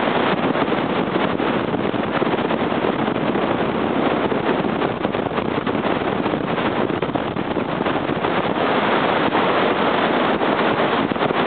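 Steady rushing noise of a fast downhill run on inline skates: wind buffeting the microphone, mixed with the wheels rolling over asphalt.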